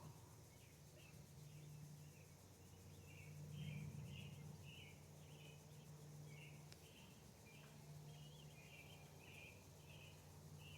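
Faint, steady series of short high chirps from a small bird, repeating roughly every half second to second, over a low steady hum.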